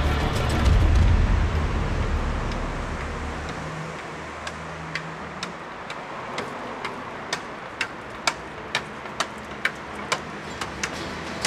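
Music fades out over the first few seconds. Then footsteps: shoes clicking on stone paving slabs, about two steps a second, growing a little more frequent near the end.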